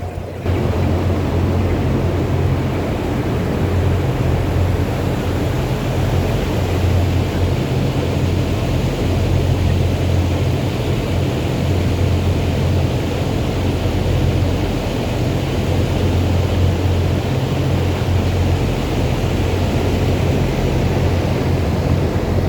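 Steady drone of running machinery: a strong low hum under a broad, even rushing noise. It comes in abruptly about half a second in and holds without a break.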